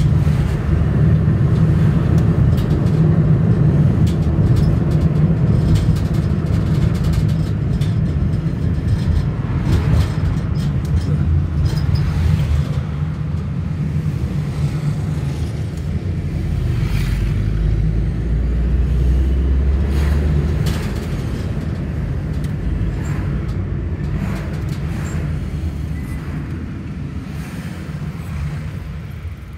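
Vehicle engine and road noise heard from inside the cabin while driving, a steady low rumble that dies down near the end as the vehicle slows in traffic.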